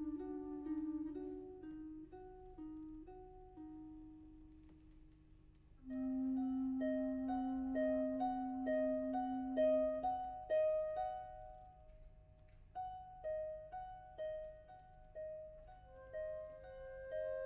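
Alto flute and concert harp playing contemporary chamber music. Low held flute notes alternate at the start and then fade. About six seconds in, a long low flute note sounds against repeated plucked harp notes. Plucked harp notes ring on to the end, with a higher harp line near the end.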